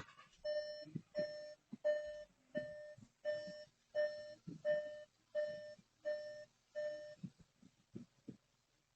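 2019 Volkswagen Jetta's dashboard warning chime sounding about ten times, one chime roughly every 0.7 s, then stopping about seven seconds in. Faint low knocks come between the chimes.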